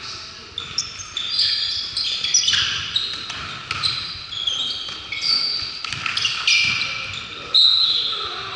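Basketball game on a hardwood gym floor: sneakers squeaking and the ball bouncing, with a short shrill referee's whistle blast near the end.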